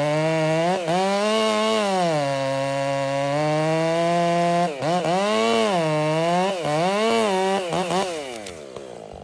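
Stihl MS 500i two-stroke chainsaw running hard, its engine note repeatedly sagging and climbing back up as under load in a cut. Near the end the pitch slides down and the sound falls away.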